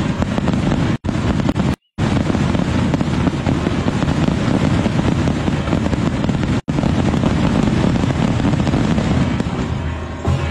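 Dense, rapid crackling of a long string of firecrackers going off without a break. The sound cuts out for an instant three times.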